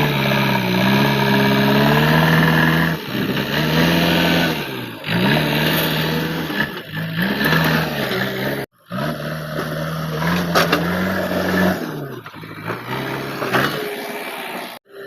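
JCB 3DX backhoe loader's diesel engine working, its pitch dipping and climbing again several times as the load comes and goes. The sound breaks off for a moment about nine seconds in and stops shortly before the end.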